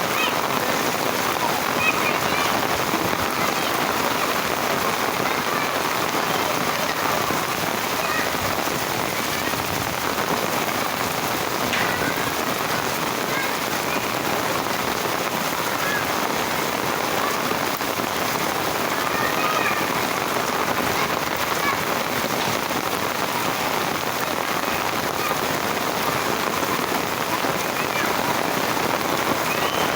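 Heavy rain pouring steadily, a dense even hiss of drops, with faint children's shouts now and then.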